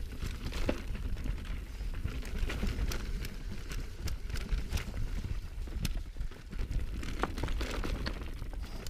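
Mountain bike riding a dirt trail: wind buffeting the chest-mounted GoPro's microphone as a steady low rumble, with many quick clicks and rattles from the bike and tyres over rough ground.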